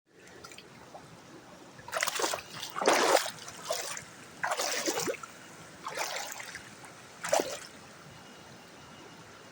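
Footsteps wading through a shallow creek: about five splashing steps, a second or so apart, over a faint steady trickle of running water.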